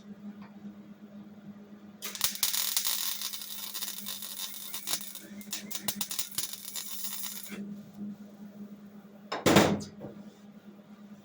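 A wire-feed welder's arc crackles on car body sheet metal for about five seconds, starting about two seconds in and breaking into short sputters before it stops. About nine and a half seconds in there is one short, loud burst. A steady low hum runs underneath.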